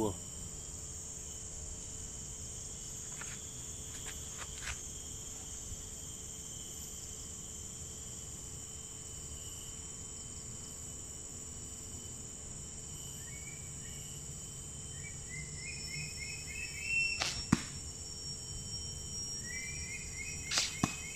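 Two darts shot from a 6-foot belian-wood blowpipe near the end, each a short, sharp shot, about three seconds apart. A steady chorus of insects runs underneath.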